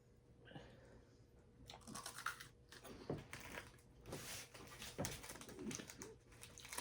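Someone biting into and chewing a crunchy chocolate wafer bar: faint, irregular crunches with some crinkling.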